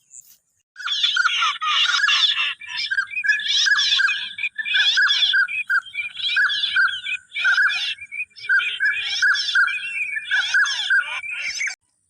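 Recorded duck calls played loud: a fast, unbroken run of repeated calls that starts abruptly about a second in and cuts off abruptly near the end.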